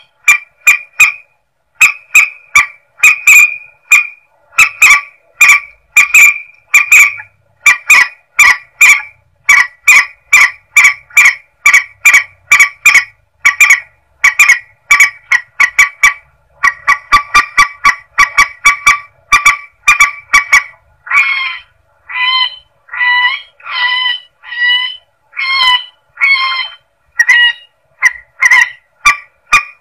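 Mandar sawah (a rail-family water bird) calling: a long run of short, honking calls repeated about twice a second. From about two-thirds of the way in the calls come more spaced out and sound higher. It is a lure recording played to attract the bird.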